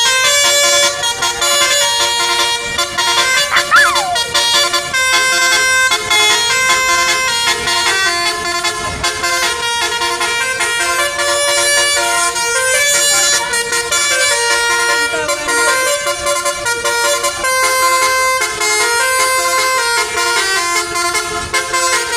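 Indonesian bus 'telolet' horn, a set of multi-tone electric horns, playing a tune of held notes that step up and down in pitch, several tones at once. It is loud and starts abruptly.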